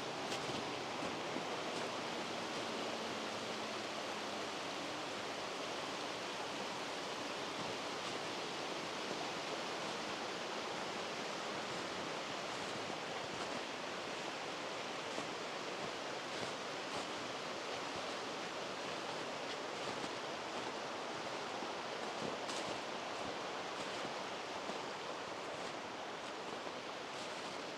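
Steady rush of flowing water from a stream, an even hiss with a few faint ticks.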